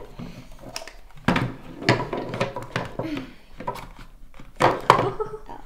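Small plastic toy house pieces clicking and knocking against each other and the tabletop as they are handled and pulled apart, a few separate knocks, with some soft children's murmuring between them.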